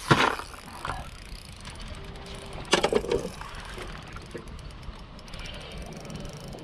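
Spinning reel clicking and ratcheting as a hooked pike is played on the line, with two louder thumps, one at the start and one about three seconds in.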